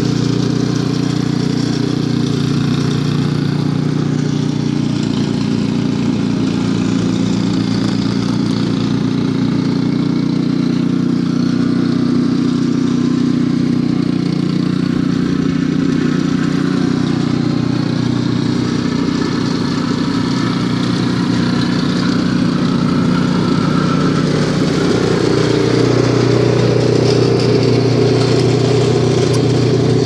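Remote-controlled gas snowblower's engine running steadily under load as the machine clears and throws snow.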